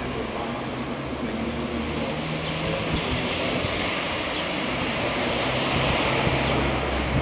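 Road traffic on a multi-lane street below: a steady wash of tyre and engine noise from passing cars, swelling a little about six seconds in.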